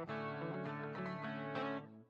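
Background music led by plucked guitar, with the notes fading out briefly near the end.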